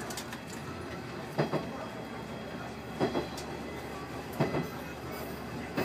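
Wheels of the Pokémon Train Kesennuma diesel railcar clacking over rail joints, a double click about every one and a half seconds over a steady running rumble, heard from inside the train.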